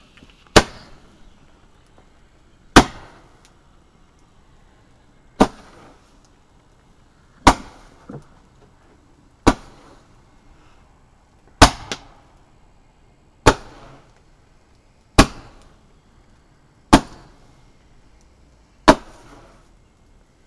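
A small ground firework firing shot after shot, sending coloured stars into the air: ten sharp bangs, about one every two seconds, each with a short fading tail. Twice a faint second crack follows just after a shot.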